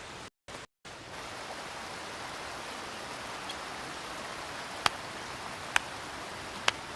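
Steady rushing of river water, cut by two brief dropouts to silence near the start, with three sharp clicks in the second half.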